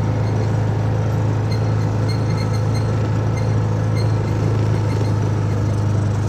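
Steady low drone of a vehicle in motion, heard from inside, with a constant low hum and road noise and no change in pitch.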